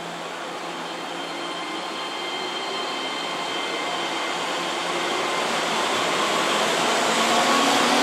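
Keihan 2200-series electric train moving slowly along the platform track, its running noise and faint motor whines growing steadily louder as it draws alongside.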